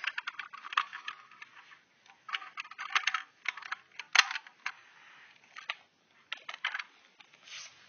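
A hard plastic toy house being handled: bunches of small clicks and taps as its plastic parts knock together, with one sharper click about four seconds in.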